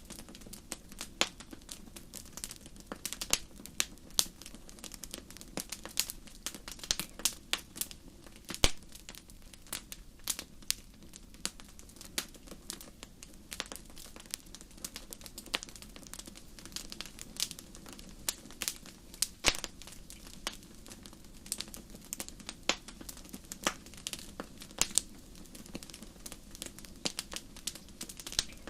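Wood fire crackling: irregular sharp pops and snaps, several a second and varying in loudness, over a low steady rumble of the burning.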